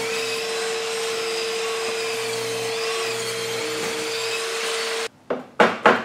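Chicago Electric bench-top table saw running and cutting a thin strip of wood, a steady whine over the noise of the cut. It stops abruptly about five seconds in, and a couple of sharp knocks follow near the end.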